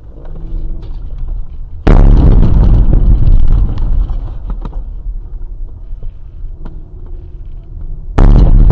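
Two explosions, about six seconds apart. Each starts suddenly and is loud enough to overload the recording, then dies away in a low rumble.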